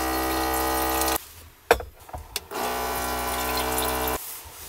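Small electric water pump of a camper-van sink running steadily as water is drawn for boiling. It stops about a second in, two sharp clicks follow, and then it runs again for a second and a half.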